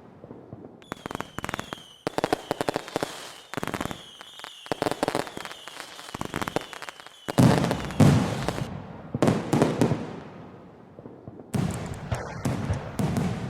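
Fireworks going off: rapid crackling and popping with a run of short, high whistles falling slightly in pitch, then heavy booming bursts about halfway through and again near the end.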